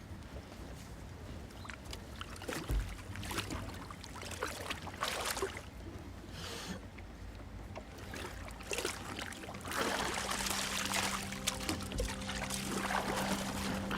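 Water splashing and lapping in irregular swishes, with a few sharp knocks. A low steady hum comes in about ten seconds in.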